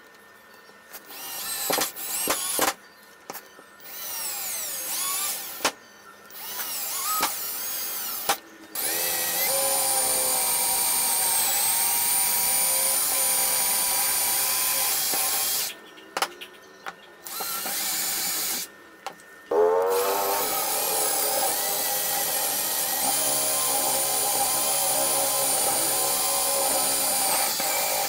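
Cordless drill boring holes in wood. It starts with several short trigger bursts, its pitch rising as the motor spins up, then runs steadily twice for about seven and eight seconds, with a brief stop between.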